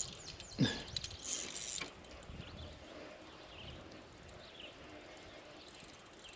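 A spinning reel worked against a hooked northern pike, with faint water sounds: a short sharp sound about half a second in and a brief rasp just after a second, then quiet.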